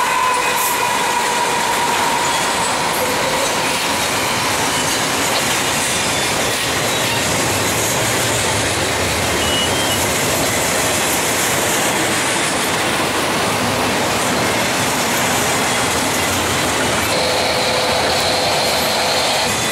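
Norfolk Southern double-stack intermodal train rolling past, its container well cars making a steady wheel-on-rail rumble and rattle as the train slows. A whine from the departing locomotives, which sounds like dynamic braking, fades away in the first couple of seconds, and a high steady wheel squeal comes in near the end.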